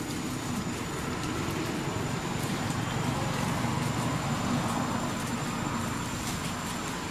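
Steady rumble of road traffic, with a thin, steady high tone over it.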